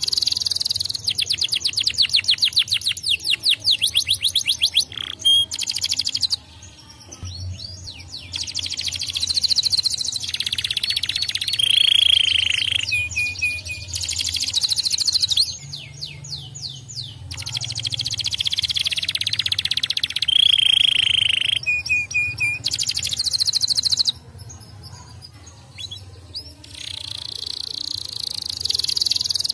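Domestic canary singing a long song of fast rolling trills and held whistled notes, with two short breaks, about a third of the way in and again near the end.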